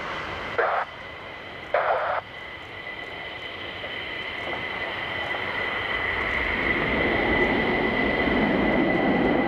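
F-15E Strike Eagle's twin turbofan jet engines whining steadily as the jet rolls along the runway after an emergency landing, slowly growing louder with a low rumble building in the second half. Two brief bursts of radio noise come in near the start.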